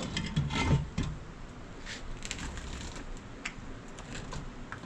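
A cluster of knocks and clatter from hard objects being handled, loudest about half a second to a second in, followed by scattered single clicks.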